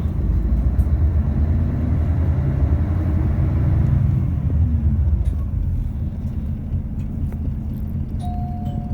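Toei city bus running, a heavy low engine and road rumble heard from inside the cabin; the engine note rises over the first few seconds, then eases off about five seconds in. Near the end a stop-request chime starts to ring.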